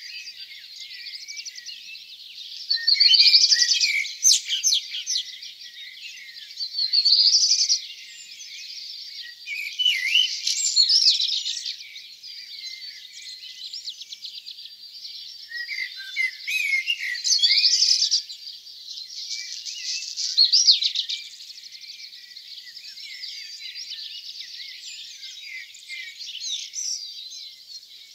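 Dawn chorus of songbirds: louder song phrases, each a second or two long, come every few seconds over a steady background of many birds chirping.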